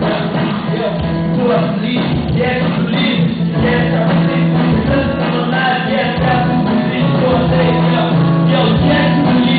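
Gospel praise team singing together through microphones, several voices in a continuous song over a sustained musical backing.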